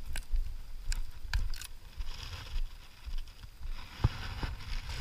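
A few sharp clicks and knocks over a low rumble: handling noise as a freshly landed largemouth bass is held up in a boat.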